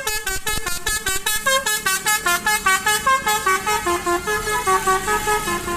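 Bus 'telolet' horn, a multi-tone air horn, playing a fast tune of short notes, about six a second, jumping up and down in pitch.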